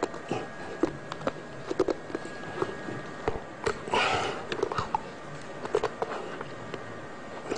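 A man chewing a metal nail, grinding it between his teeth with irregular sharp crunches and clicks, and a short noisy burst about four seconds in.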